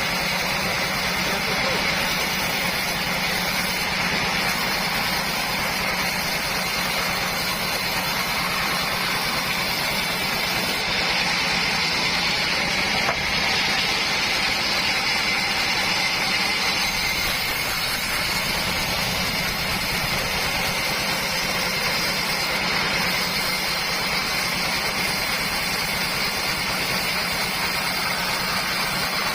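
Homemade sawmill running steadily as it saws mahogany into boards: a constant low mechanical hum with a steady hiss above it.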